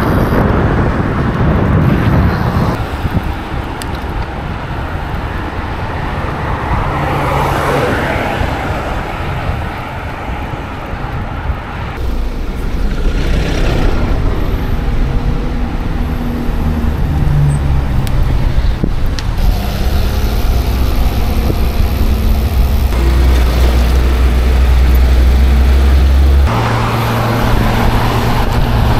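Road traffic passing close by, heard from a moving bicycle: cars and a van going past, with a city bus's engine running steadily alongside for several seconds in the second half.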